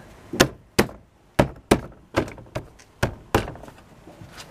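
Plastic interior door trim parts of a 2009 Hyundai Veracruz being pressed and knocked into place by hand so their clips snap in: about eight sharp, separate knocks.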